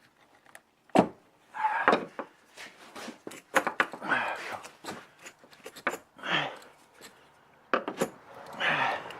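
Scattered sharp clicks and knocks of metal parts and tools being handled as a 2003 Ford Escape's rear window hinge is worked into line against its spring, with a few short grunts between them.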